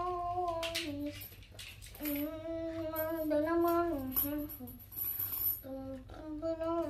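A voice humming a wordless tune in long held notes, three phrases with short breaks between them.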